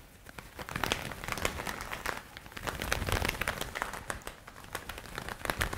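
Leather gloves worked against each other as a film foley effect: a dense, irregular crackling flutter of many small clicks.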